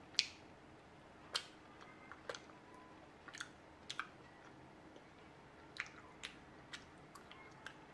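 Raw honeycomb being chewed: faint, irregular wet clicks and smacks of the mouth, the loudest within the first second and a half.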